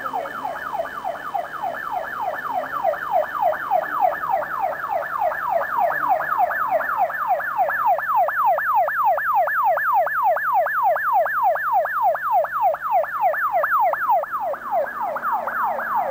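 Electronic siren on a car leading the cyclists, in a fast yelp that sweeps about four times a second. It grows slightly louder as the car approaches.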